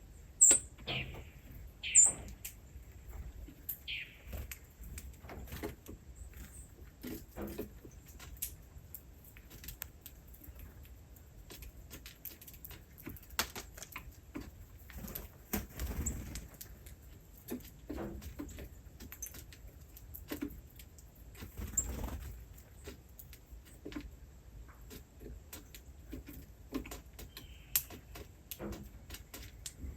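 Small birds giving a few short, high, falling chirps, the loudest two in the first couple of seconds, among many scattered soft clicks and rustles.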